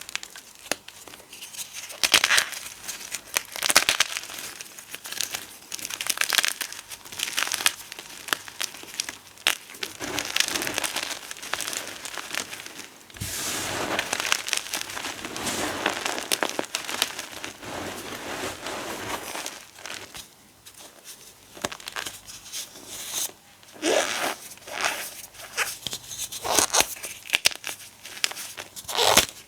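Dry gym chalk and potato flour being crushed and crumbled, a dense, irregular crackling and crunching that thins out for a few seconds in the middle, then comes back as sharper crunches near the end.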